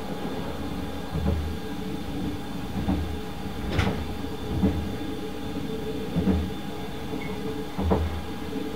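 Running noise heard inside a 24-series sleeper coach of the Hokutosei blue train at speed: a steady rumble with a low thump about every one and a half seconds, and one sharper click about four seconds in.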